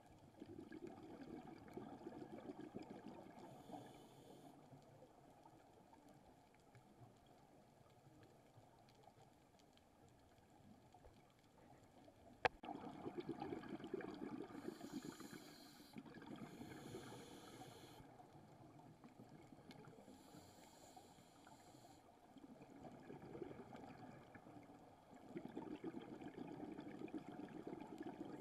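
Faint, muffled underwater water noise that swells and fades every few seconds, with one sharp click about halfway through.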